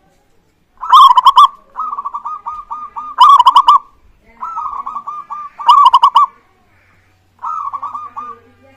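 Zebra doves (perkutut) singing their rapid pulsed cooing song. Three loud ringing phrases come about two and a half seconds apart, each followed by a softer quick run of coos, and another soft run comes near the end.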